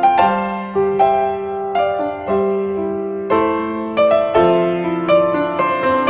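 Background piano music: gentle notes and chords struck about once or twice a second, each ringing and fading.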